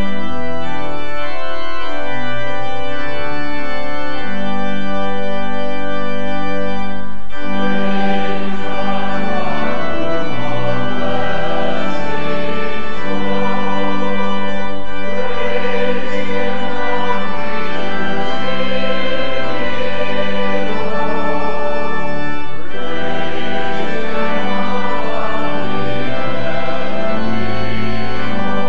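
Organ playing held chords, then a mixed church choir comes in singing with the organ about seven seconds in.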